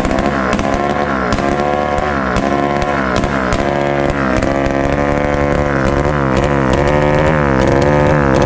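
Two-stroke engine in a Honda Titan 150 motorcycle running loud with no exhaust pipe fitted. Its speed rises and falls in repeated throttle blips, about three every two seconds.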